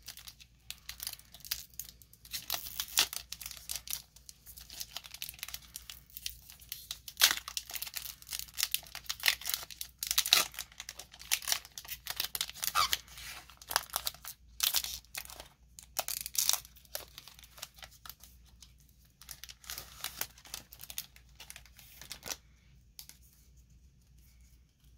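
A foil Pokémon booster pack wrapper being torn open and crinkled by hand, in a long run of sharp crackling rips that dies down near the end.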